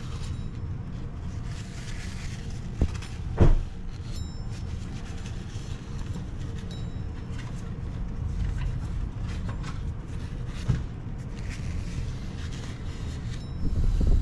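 Cloth wiping and rubbing inside an engine's oil filter housing to clean out dirt, with a couple of sharp knocks about three seconds in, over a steady low rumble.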